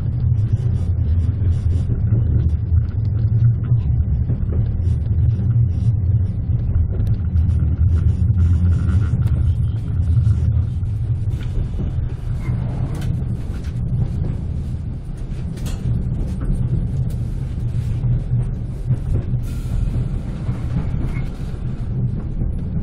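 Passenger train running on the tracks, heard inside the coach: a steady low rumble of wheels on rails, a little quieter in the second half.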